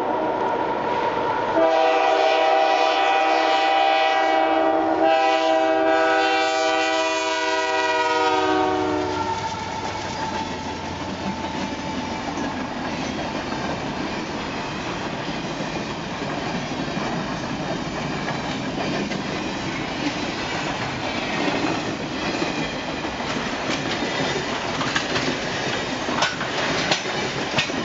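Canadian Pacific Holiday Train's diesel locomotive air horn sounding a chord: one blast that ends about a second in, then a long blast held until about nine seconds in, its pitch sagging slightly at the end. After that comes the steady rumble and wheel clatter of the train's cars rolling past.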